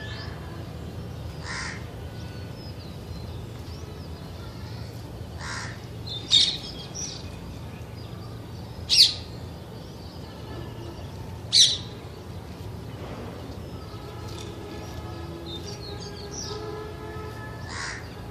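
Parakeet giving short, shrill squawks, the three loudest about two and a half seconds apart mid-way, with a few fainter calls around them. Other birds chirp faintly over a steady low hum.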